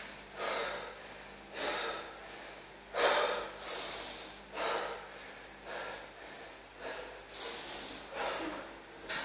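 A man breathing hard and noisily, about one heavy breath a second: he is out of breath from a high-intensity circuit of deadlifts, burpees and chin-ups.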